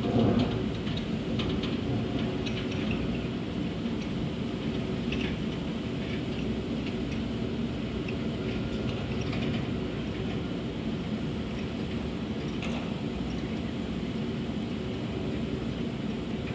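Diesel engine of a Sumitomo SH350-6 hydraulic excavator running steadily while it loads bauxite, with a few faint clicks and clanks. There is a brief louder rumble right at the start.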